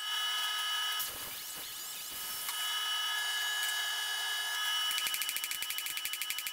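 A steady hiss and hum of the forge with a low clatter about a second in. From about five seconds in comes a fast, even run of hammer blows on hot steel at the anvil, about eight a second.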